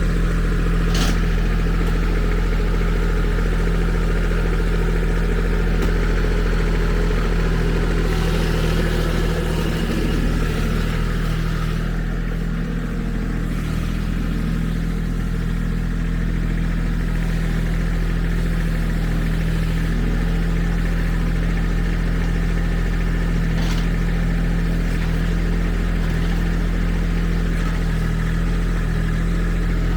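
Kubota SSV75 skid steer's diesel engine running steadily while working a BH70 backhoe attachment, with a couple of short knocks, one about a second in and another near the end.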